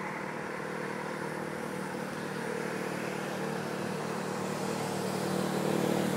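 Road traffic on a multi-lane street: a steady hum of car engines and tyres, growing louder near the end as vehicles approach.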